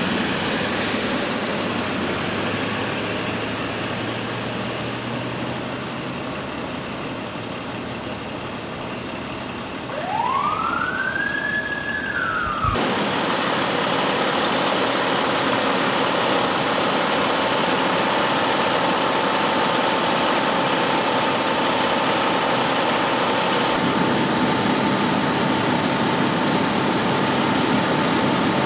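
Emergency vehicle siren rising in pitch about ten seconds in, cut off abruptly a couple of seconds later, over steady vehicle engine noise. Afterwards a louder steady engine drone with a faint steady hum.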